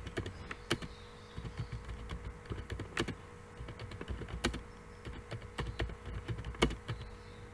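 Typing on a computer keyboard: irregular key clicks, a few strokes louder than the rest, over a faint steady hum.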